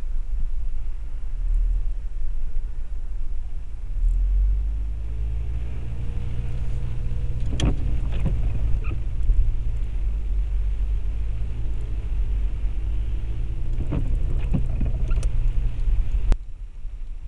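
Low rumble of a car's engine and tyres heard from inside the cabin, picked up by a windshield dashcam while driving on a wet road; a faint engine note comes in about four seconds in as the car moves off. A few sharp clicks sound around the middle and again near the end, and the sound drops off suddenly shortly before the end.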